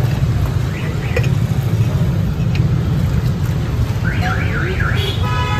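Steady low rumble of street traffic. About four seconds in, a warbling alarm-like tone rises and falls three times, followed by a short horn-like note.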